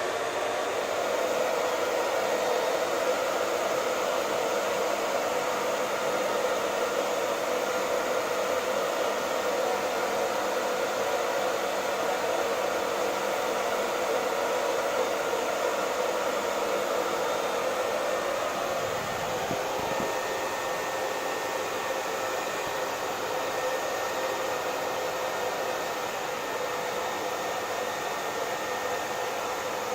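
Hair dryer running steadily: a continuous rush of blown air over its motor, with a faint steady whine. The sound dips slightly a little after two-thirds of the way through.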